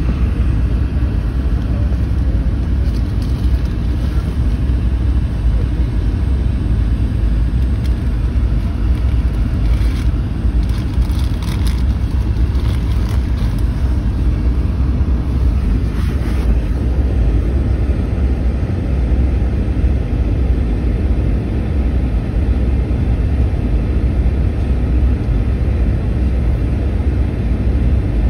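Steady low rumble of airliner cabin noise on final approach, the engines and rushing air heard from a passenger seat inside the cabin.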